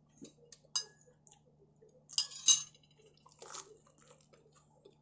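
A metal spoon clinking against a small ceramic saucer several times, the loudest pair of clinks about two seconds in.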